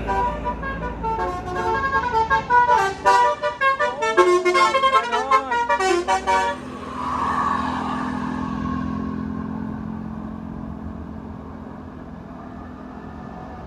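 Telolet basuri multi-tone bus horn playing a quick tune of stepped notes with a few swooping ones, stopping about six and a half seconds in. A short hiss follows, then the bus's engine running steadily and slowly fading away.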